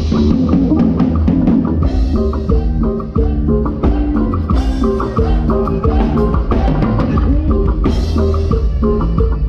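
Live band music heard from the drum kit: kick drum, snare and cymbal crashes up front, with bass and pitched melody notes underneath.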